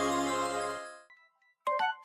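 Smartphone ringtone: a sustained electronic chord fading out about a second in, then after a brief gap another ringtone starts with quick, plinking keyboard-like notes.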